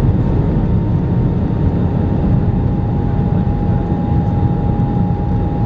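Airbus A320 cabin noise in flight during the climb: a steady, loud rush of engine and airflow noise, with a thin steady whine that steps slightly lower about a second and a half in.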